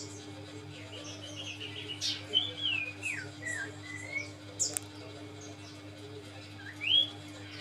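Common iora (cipow) singing: a string of clear whistled notes, some sliding down and one sharp rising whistle near the end, with faint short chirps, over a steady low hum.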